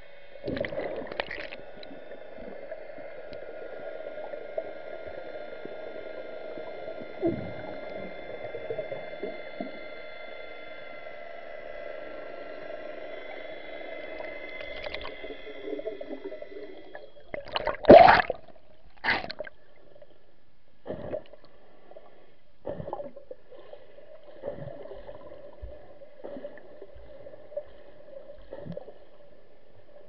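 Muffled underwater sound picked up by a camera below the surface: a steady low hum with faint steady high whines through the first half, then a series of short sharp knocks, the loudest about 18 seconds in.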